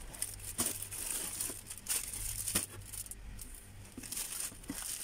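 Clear plastic packaging bags crinkling and rustling as they are handled, with irregular sharp crackles.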